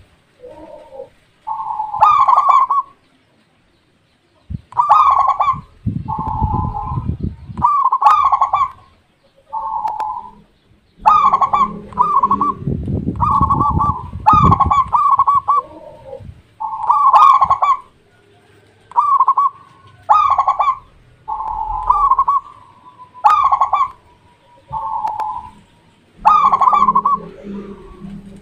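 Zebra dove (perkutut) cooing: short rolling coo phrases repeated every second or two, with brief pauses between them. A low rumble sits under some of the phrases.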